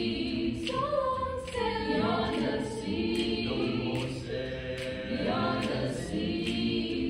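Mixed-voice high school show choir singing in several-part harmony, unaccompanied.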